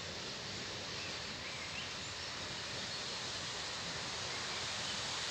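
Steady outdoor background hiss at a wet railway station, with a few faint high chirps about one and a half to two seconds in.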